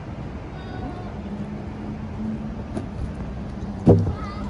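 City street noise of road traffic with a steady low hum, and a loud short thump near the end.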